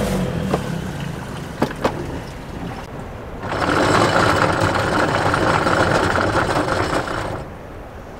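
Sailboat's inboard diesel running at low revs, with a few sharp clicks as the engine control lever is worked. About three and a half seconds in, a loud, steady rattling starts and lasts about four seconds: anchor chain running out as the anchor is dropped.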